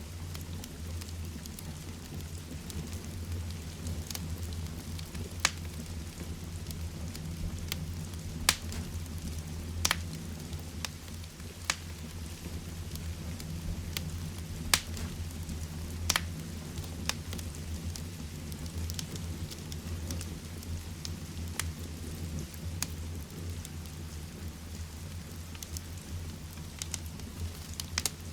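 Heavy rain falling steadily with a low rumble, mixed with a wood fire crackling in a fireplace: irregular sharp pops every one to a few seconds.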